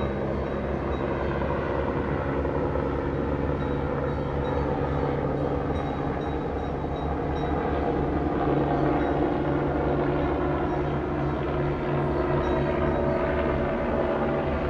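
Small aircraft flying overhead, a steady engine drone that grows a little louder about halfway through.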